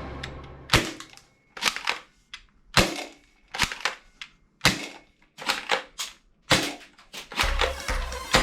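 Toy guns firing about a dozen sharp cracks, irregularly spaced, some in quick pairs. Background music comes back in near the end.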